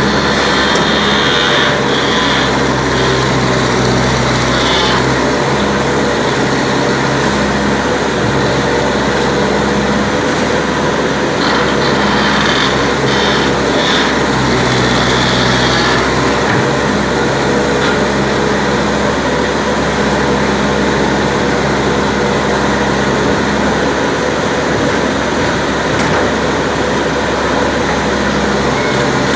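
Backhoe loader's diesel engine running steadily under work. A higher whine comes in twice over the engine note, once at the start and again about halfway through.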